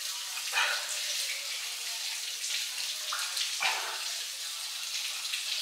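Water running from a kitchen tap in a steady hiss, with a few brief louder sounds over it.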